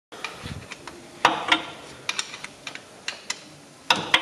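Hand tools working on metal in an engine bay: a series of irregular sharp metallic clicks and clinks, the loudest about a second in and again near the end.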